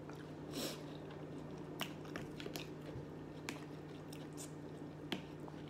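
Quiet, close-up chewing and mouth sounds of someone eating shrimp and rice, with a few short, sharp clicks scattered through, over a steady low hum.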